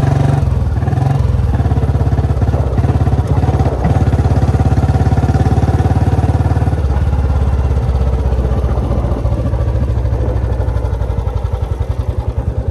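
Old Royal Enfield Bullet's single-cylinder four-stroke engine thumping steadily while riding. Over the last few seconds the beat slows as the bike eases off.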